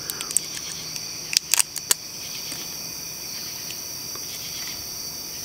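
Crickets chirring steadily in the background, with a few sharp clicks about a second and a half in, from handling things at the table.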